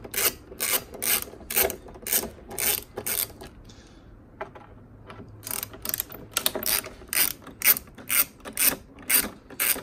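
Hand ratchet with a T30 Torx socket on a long extension clicking as it undoes the bolts on top of the front bumper: a run of regular clicks about two a second, a pause of about two seconds, then another run of clicks.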